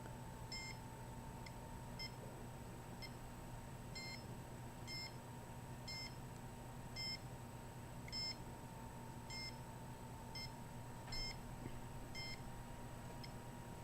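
Handheld microwave radiation meter giving short, faint beeps at an uneven pace of about one a second; the beeping follows the radiation the meter picks up.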